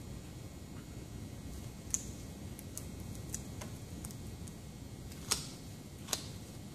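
Scattered sharp clicks and ticks, the loudest about five seconds in, as nitrile-gloved hands knead and press a resin-soaked wrap flat around a bamboo bike-frame joint, over a steady low hum.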